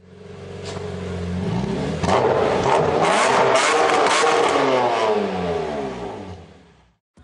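Car engine revving, its pitch sweeping up and down, swelling in from silence and fading away. Several sharp cracks come in the loudest part, about two to four seconds in.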